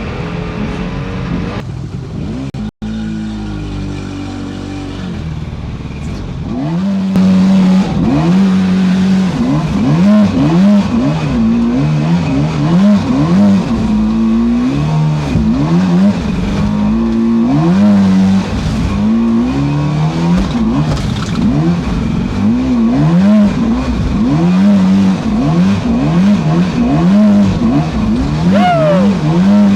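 Small radio-controlled boat's motor revving up and down again and again as the throttle is worked, over rushing water. It gets louder about a quarter of the way in.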